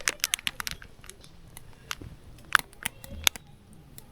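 Scattered sharp clicks and light taps of small objects being handled, the loudest about two and a half seconds in.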